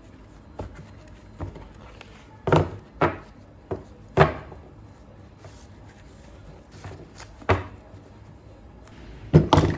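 Paper memo pads and sticky-note pads being handled and knocked down onto a desk: a series of short, sharp taps and knocks with paper rustling, a quick double knock near the end being the loudest.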